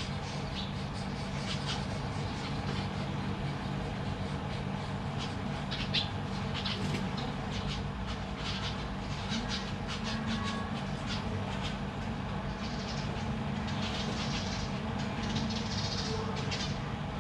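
Zebra finches calling: short high chirps and ticks scattered throughout and bunched near the end, over a steady low hum.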